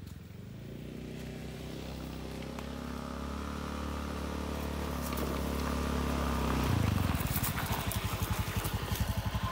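Small motor scooter engine coming up a dirt track, growing steadily louder as it approaches. About seven seconds in, as it draws close, the steady engine note changes to a rapid pulsing beat.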